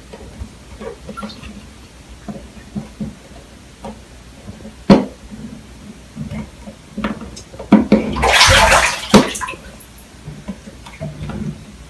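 Cat pawing and pushing at the flip lid of a plastic pet-food bin: scattered light plastic clicks and knocks, a sharp click about five seconds in, then a louder rattling rush lasting about a second and a half as the lid comes open.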